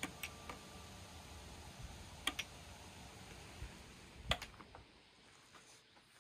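Quiet room tone with a few scattered faint clicks and taps, the loudest about four seconds in.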